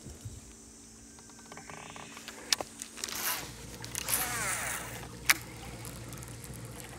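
Baitcasting reel being cranked, giving a zipper-like whirring that wavers in pitch, with a couple of sharp clicks about two and a half and five seconds in.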